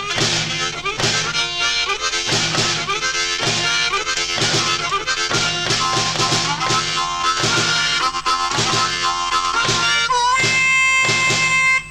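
Harmonica blues with a steady beat and bending, sliding notes; from about ten seconds in it holds long, steady notes.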